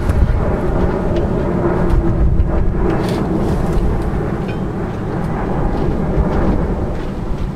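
Continuous low rumble, with a few light clinks of hand tools on metal near the start and about three seconds in.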